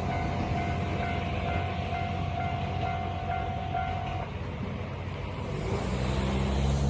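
Japanese level-crossing alarm ringing in a quick pulsing tone over the low rumble of a train, the alarm stopping about four seconds in. Near the end a road vehicle's engine starts to rise.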